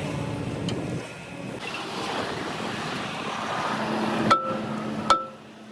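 A steady rushing noise with no clear source, then background music of sharp plucked notes starting about four seconds in.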